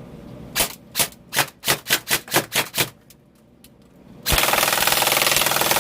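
Tuned-up airsoft gun firing about ten quick single shots, coming faster and faster. After a short pause it opens up in a loud, continuous full-auto burst about four seconds in.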